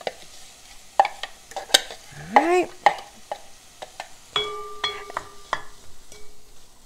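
Wooden spoon scraping and tapping chopped carrot out of a plastic food-processor bowl into a saucepan: a run of clicks and knocks, with a short rising squeak a little past two seconds in. A few taps about four and a half seconds in set the pot ringing briefly.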